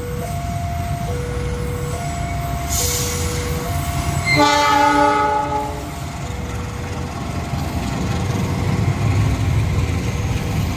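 Railroad level-crossing warning signal sounding two alternating tones, each held just under a second, over the low rumble of a train. About four seconds in, a train's horn blows once for about a second and a half, the loudest sound here.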